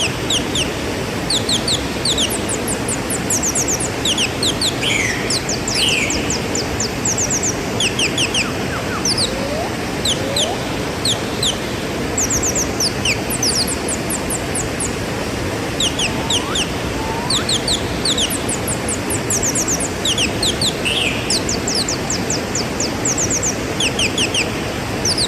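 Waterfall rushing steadily, with small birds chirping over it in quick runs of three to five high, falling notes throughout. A few slower slurred calls and low rising whistles come in now and then.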